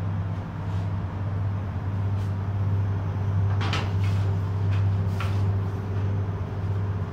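Spray booth ventilation fans running with a steady low hum. Two brief hisses break in near the middle.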